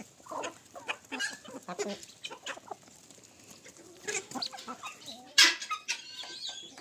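Free-range chickens clucking and calling, with one loud sharp call about five and a half seconds in.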